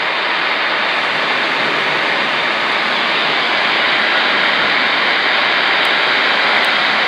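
Steady loud hiss of band noise from a Magnum 257HP 10-meter mobile radio's speaker, the receiver open on a dead band.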